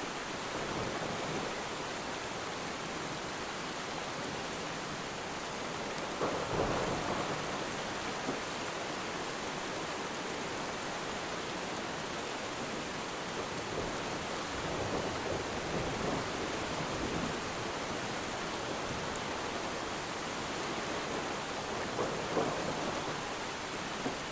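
Steady rainfall on water, with deep, distant thunder rumbling in slow swells about six seconds in, again around fifteen seconds in, and near the end.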